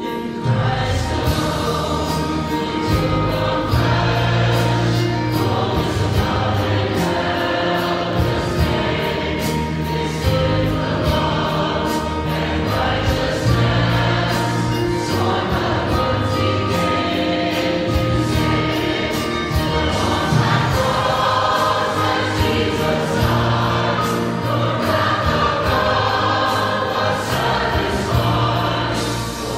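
Choral music: a choir singing, with long held notes over a low sustained bass.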